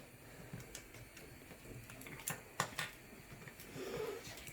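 A few light, irregular taps and clicks of small hard things on a surface, about half a dozen over a few seconds.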